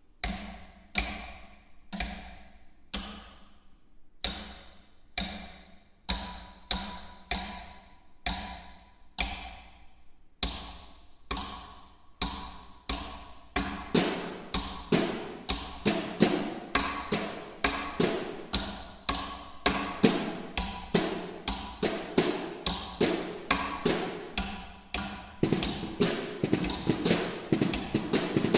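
Two snare drums struck with thin sticks, each strike ringing briefly. Spaced, pulsing strokes about once or twice a second give way about halfway through to a denser, faster pattern of strikes.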